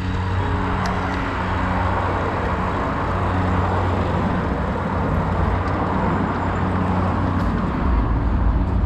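Street traffic heard from a moving cargo bike: a steady rush of wind and tyre noise with the low hum of a city bus and other vehicles close by, the rumble growing near the end.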